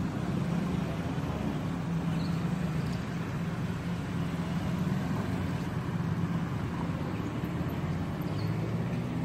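Road traffic crossing railway tracks: the steady hum of engines from minivans, a car and motorcycles driving slowly over the crossing.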